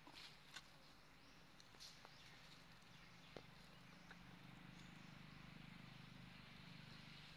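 Near silence: faint outdoor background with a low steady hum that grows a little about halfway through, and a few soft ticks in the first half.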